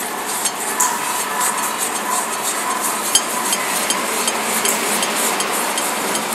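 Noise music from a vinyl record playing on a turntable: a steady hiss laced with many quick clicks and crackles.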